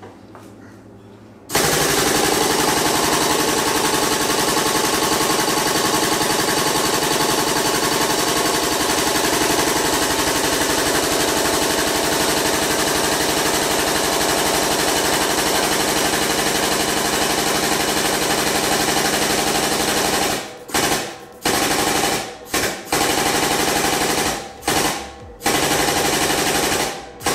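Hydraulic pump driving a tube bender's cylinder through a bend, a loud steady fast-pulsing chatter. After about 19 seconds it stops, then runs in about five short bursts near the end as the bend is inched up to its final angle.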